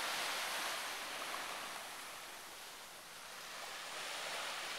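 Gentle surf washing onto a sandy beach: a steady hiss of small waves that eases off about halfway through and builds again near the end.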